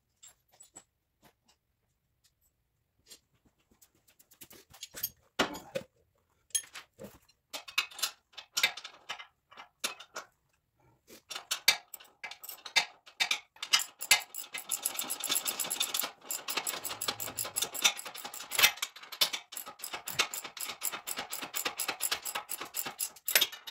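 Metal parts clinking as a bolt is fitted into the frame's suspension mount, then a hand socket ratchet clicking quickly and evenly for about nine seconds as the bolt is run in.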